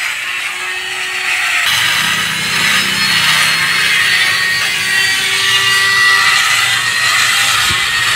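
Hand-held electric drill grinding into stone, hollowing out the pot of a stone statue: a steady high whine over a gritty rasping, with a lower hum joining about two seconds in.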